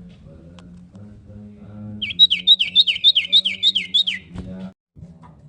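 Common iora (cipow) singing: a quick run of about eight clear whistled notes, each sliding down in pitch, about four a second, starting about two seconds in and lasting some two seconds.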